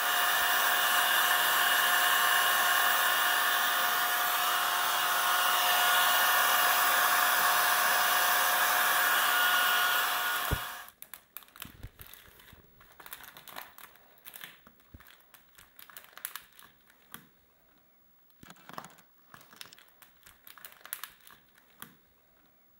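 A handheld hot-air blower runs steadily with a whining fan for about ten seconds, then cuts off. Faint crinkles and clicks follow as plastic wrap and tape are pressed down by hand.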